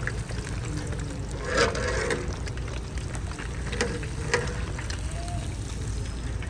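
Steady low rumble with faint voices in the background and a few sharp knocks, the first about one and a half seconds in and two more near the middle.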